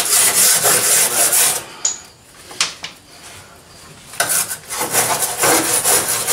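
Hand wire brush scrubbed back and forth over fresh welds on a car's rocker panel, about four scraping strokes a second. The brushing stops for about two seconds midway, then resumes.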